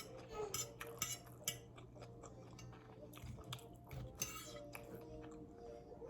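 Quiet eating sounds: scattered clicks and scrapes of a utensil against a food container, with some brief crackly bursts of chewing.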